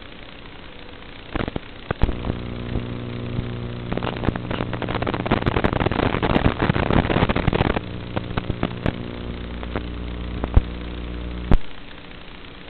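FPV quadcopter's motors and propellers buzzing steadily, with scattered crackles. From about four seconds in the buzz gives way for roughly four seconds to a loud rough hiss and crackle as the analog video link breaks up, then the steady buzz returns.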